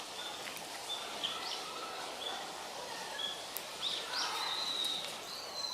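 Small birds chirping: short, high whistled notes repeated every half second or so, with a longer drawn-out note near the end, over a steady outdoor background noise.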